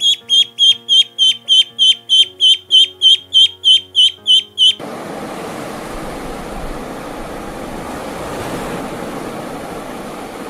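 A fast, even series of high, falling chirps, roughly three or four a second, over background music. About halfway through they stop abruptly and a steady rushing noise, like surf or wind, takes over.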